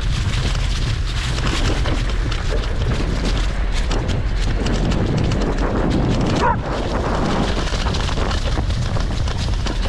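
A bicycle with knobby tyres riding over bumpy grass: wind buffets the microphone with a steady low rumble, and the bike knocks and rattles over the bumps. A brief high sound comes about six and a half seconds in.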